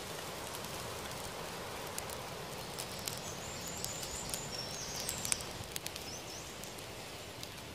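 Small campfire of dry twigs and birch bark crackling, with many sharp pops over a steady hiss. A bird chirps a short run of high notes in the middle.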